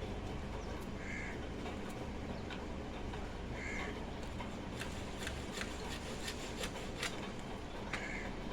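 A bird calling in short single calls, three times: about a second in, near four seconds and near the end. A few sharp clicks come in the second half, over a steady low background noise.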